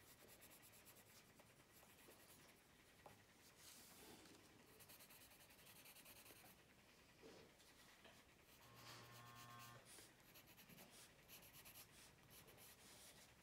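Faint scratching of a Faber-Castell Polychromos coloured pencil shading on colouring-book paper, in short irregular strokes. A brief low buzz sounds about nine seconds in.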